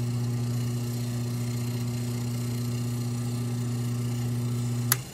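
Freshly rebuilt Delta 62-110 single-phase induction motor running free on the bench with new bearings, a steady even hum. It is switched off with a click near the end, and the hum cuts off.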